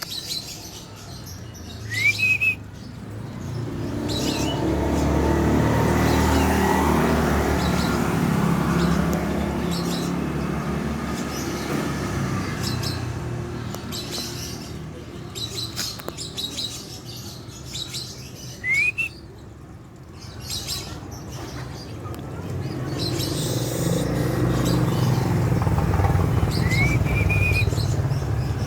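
Young prinia (prenjak) giving a few short chirps, each sweeping up then holding briefly. A low rumble swells and fades twice in the background.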